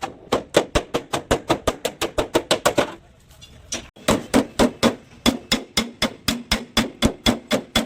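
A hammer striking car body sheet metal, panel-beating damage out, in quick even blows of about five or six a second, with a break of about a second partway through.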